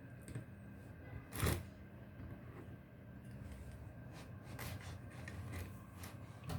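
Handling noises on a workbench: a sharp knock about a second and a half in, then scattered small clicks and rustles over a low steady hum.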